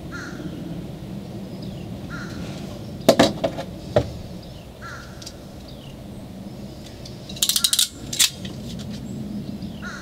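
Ratcheting crimp tool clicking as it squeezes bullet connectors onto wires, in a cluster of clicks about three seconds in and a rapid run of clicks near seven and a half seconds. A bird calls several times in the background, each call short and falling.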